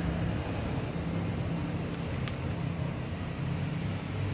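A motor running steadily with a low hum, and a faint click a little after two seconds in.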